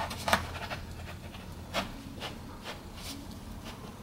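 Laminate flooring plank being set into place: a few light wooden knocks and rubbing as the board is handled and fitted.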